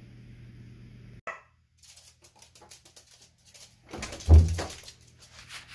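A small dog giving a brief yelp just over a second in, then a louder bark about four seconds in, with a few light clicks between.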